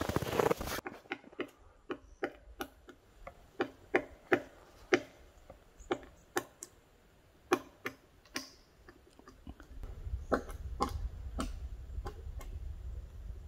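Boots crunching in snow for under a second, then a run of sharp, irregular taps or knocks, about two to three a second, with a low rumble coming in about ten seconds in.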